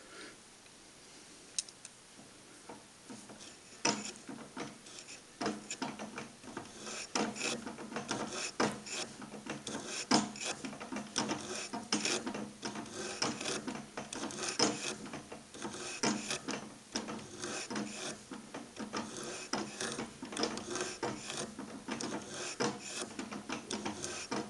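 A boring head's cutter scraping against an aluminium casting in short, irregular cuts, with the mill spindle turned by hand rather than under power. It starts about four seconds in.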